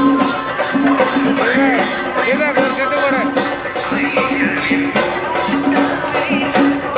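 Traditional procession music: a steady, rhythmic drum beat with jingling percussion under a melody that slides up and down in pitch.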